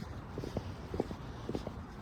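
Footsteps of a person walking at a steady pace, about two steps a second, over a low rumble.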